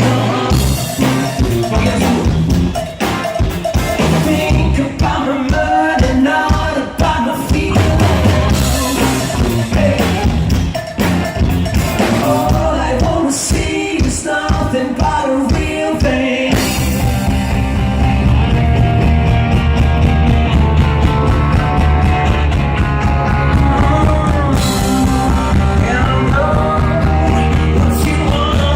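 Live rock band playing a song with a singer over drums during a sound check. About sixteen seconds in, the full band comes in heavier, with a steady low bass under the voice.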